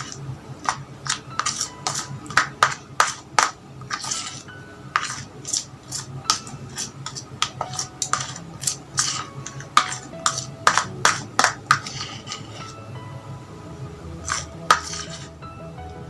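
A utensil stirring thickening homemade slime in a bowl, with irregular sharp clinks and taps against the bowl, some ringing briefly. The slime is being mixed just after more detergent activator was added.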